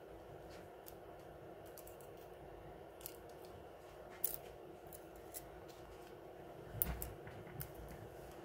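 Sparse small clicks and taps as a precision screwdriver and fingertips work on the opened Samsung Galaxy A50's sub-board screws and flex cables. The loudest click comes about four seconds in and a small cluster follows near the end, over a faint steady hum.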